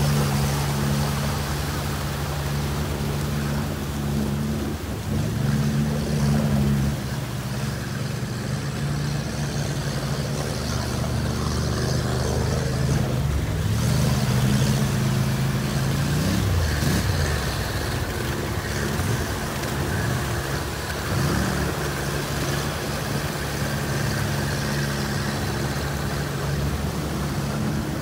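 Sherp amphibious ATV's diesel engine running steadily under load as its big low-pressure tyres churn through shallow water, with constant splashing and sloshing. The engine pitch rises and falls a few times past the middle.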